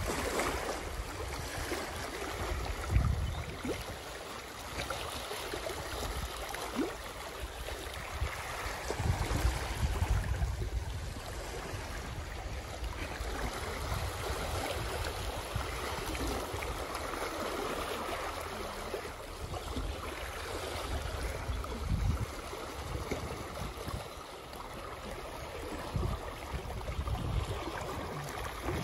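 Small waves lapping and washing over a rocky shoreline, with low rumbling wind gusts on the microphone now and then, loudest about three seconds in and around ten seconds in.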